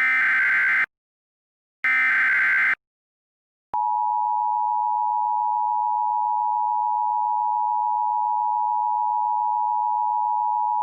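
Emergency Alert System tones: the last two of the three SAME header data bursts, each about a second long with a short gap between them, then the EAS two-tone attention signal (853 and 960 Hz) starting a little under four seconds in and held as one steady, loud tone.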